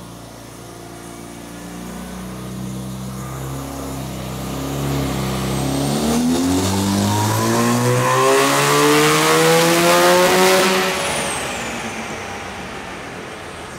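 Turbocharged, bridgeported 13B rotary engine in an RX-7 doing a boost-test pull at about 7 psi: its note climbs steadily in pitch and grows louder for about ten seconds, then the revs ease off and it fades. A high whistle rises with the revs and falls away after the lift-off.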